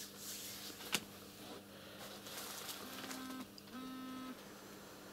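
Quiet handling of a small paper book: pages rustling as they are turned, with a couple of soft clicks in the first second. Around the middle come two short, steady hums of about half a second each, over a faint constant electrical hum.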